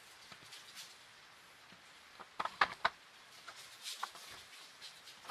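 Light clicks and taps of a laser-cut 3 mm MDF model car being handled and set down on the table: a quick cluster of three or four clicks a little over two seconds in, then a few single taps.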